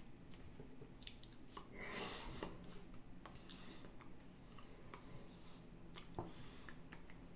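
Quiet mouth sounds, soft lip and tongue clicks and breaths, from a man mouthing words without voice, with a breathy rush about two seconds in and a sharper click just after six seconds.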